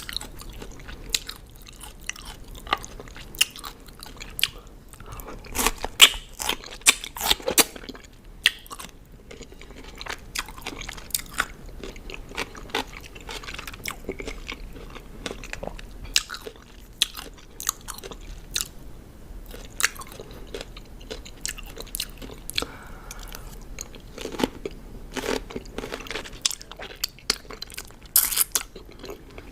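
Close-miked crunchy chewing of raw cucumber: irregular sharp crunches and wet mouth sounds, with several bites.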